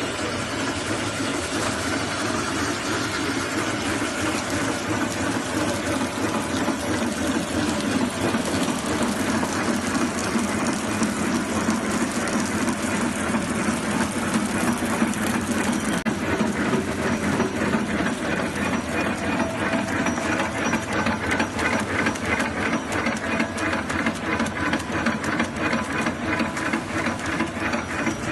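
Automatic play dough extruding and flow-wrap packing machine running: a steady mechanical hum and hiss with a fast, even clatter that becomes more distinct about halfway through.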